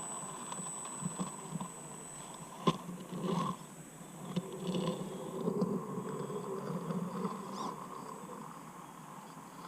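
Radio-controlled rock crawler's brushed motor and three-gear transmission whining at crawling speed, with scattered knocks and scrapes. There is one sharp knock a little under three seconds in.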